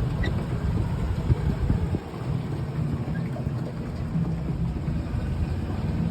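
Wind buffeting the phone's microphone: a steady, low rumbling noise.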